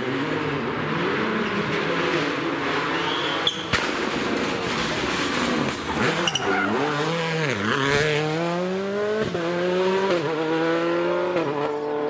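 Rally car engine slowing into a hairpin, its pitch dropping, then accelerating hard away with the pitch climbing and two quick upshifts.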